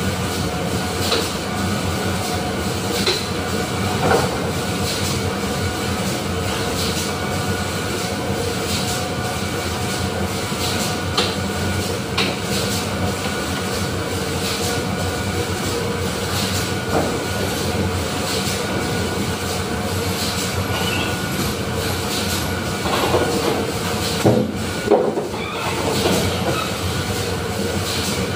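Steady din of factory machinery on a barrel-plating line, a continuous mechanical roar with a steady hum. A few sharp knocks cut through it, two close together near the end.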